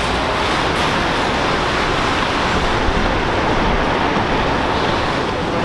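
Steady urban traffic noise: an even, continuous rush with no distinct events standing out.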